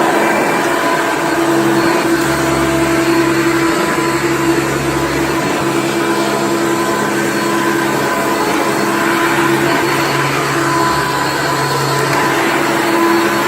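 Hoover Elite hard-bag upright vacuum cleaner running steadily, its motor giving a constant hum with a steady tone. The machine has a new belt and bag on a used brush roll.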